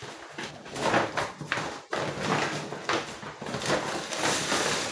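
Plastic grocery packaging rustling and crinkling unevenly as it is handled.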